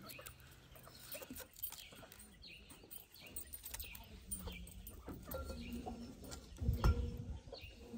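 Faint background of farmyard fowl, with chickens clucking and other birds calling. Light knife clicks come as ginger is sliced by hand over a wooden mortar, and there is a soft thump about seven seconds in.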